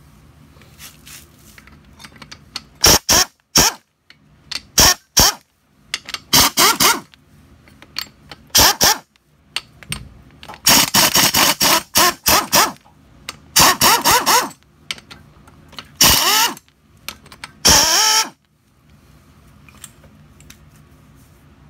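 Cordless impact driver working out the cylinder head bolts of a Briggs & Stratton 4.5 hp vertical-shaft engine. It runs in about ten bursts that start and stop sharply, some brief and some about two seconds long, each with a rising whine as the tool spins up.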